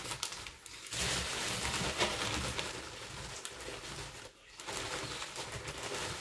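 Potting soil pouring out of a plastic bag into a plastic planter box, with the bag crinkling as it is tipped; the pour pauses briefly about half a second in and again around four seconds in.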